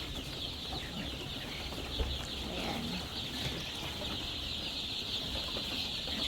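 A large flock of month-old layer pullets peeping and clucking together in a steady, continuous chorus of high chirps.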